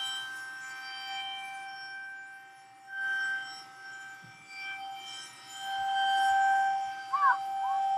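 Federal Signal 2001 rotating tornado siren sounding a steady tone during a test, swelling and fading about every three seconds as it turns. Two short chirps come about seven seconds in.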